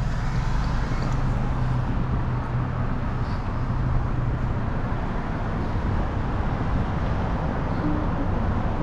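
Car engine and road noise: a steady low rumble with a faint hum.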